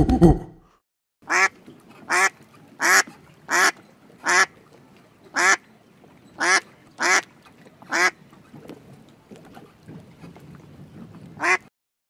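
Waterfowl calling: about ten short, harsh calls spaced roughly a second apart, with a longer pause before the last one. A louder, lower call cuts off under a second in, before the calls begin.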